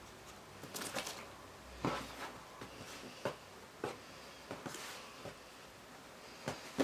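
Faint, scattered rustles and soft taps of a t-shirt being rolled by hand and laid into an open hard-shell suitcase.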